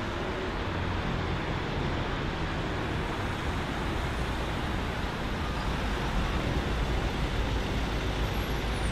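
Steady background rumble of road traffic, an even noise with no single vehicle or train standing out.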